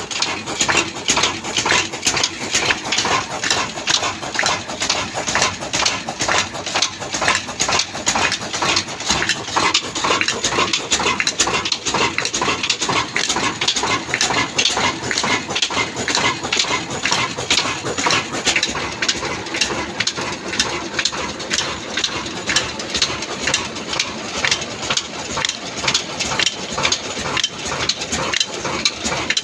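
A large 26 hp stationary single-cylinder diesel engine with twin flywheels running steadily at speed, with a fast, even beat of a few strokes a second. It is belt-driving mill machinery.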